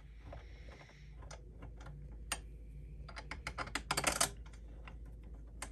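Small metal screws and a steel mounting plate being handled and fitted onto the top of a 3D printer's aluminium frame rail: irregular light clicks and taps, with a quick flurry of clicks about four seconds in.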